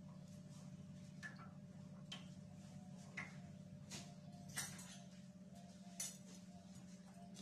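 Faint, scattered clinks of dishes and utensils being handled at a kitchen sink, about six in all, over a steady low hum.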